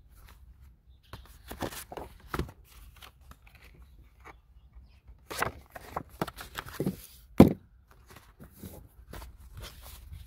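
Cardboard kit box and its paper sleeve being handled and slid apart: irregular rustling, scraping and small knocks, with one sharp knock about seven seconds in.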